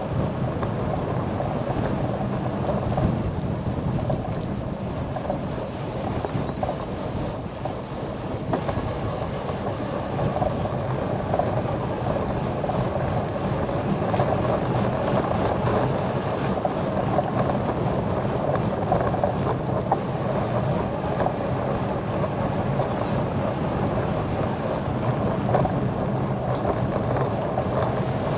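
Steady wind rushing over the microphone of a camera carried on a moving bicycle, a constant low rumble and hiss without breaks.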